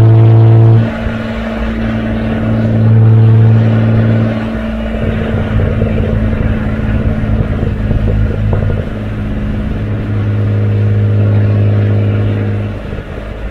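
Twin exhaust of a 1971 Opel Commodore A GS's 2.8-litre straight-six on the move, a steady-pitched drone. It is loud near the start, swells again about three seconds in and from about ten seconds until near the end, and drops back to a quieter, rougher sound in between.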